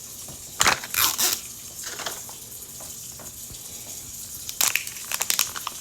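Paper and plastic wrapping of a Mini Brands capsule being handled and torn open: two bursts of crinkling and rustling, about half a second in and again near the end.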